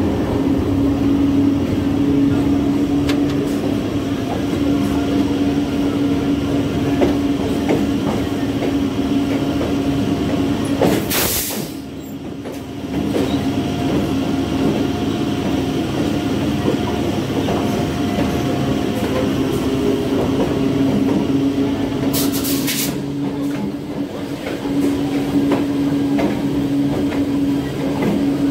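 Indian Railways express train passing close by, a diesel locomotive and then its passenger coaches, with a steady low hum and wheels rumbling and clattering over the rails. Two brief hisses come about a third of the way in and again about three-quarters through.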